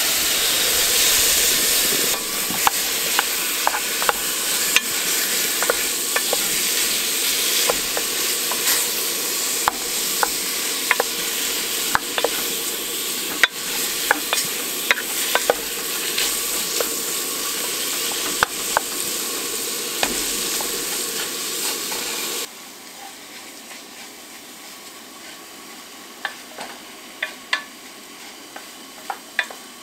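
Chopped salt beef, potatoes, turnip, chicken and broccoli frying in butter in a metal pot, sizzling loudly from the moment they go in, while a wooden spoon stirs them, knocking and scraping against the pot. About 22 seconds in the sizzle drops to a much quieter level, with the spoon's knocks still coming.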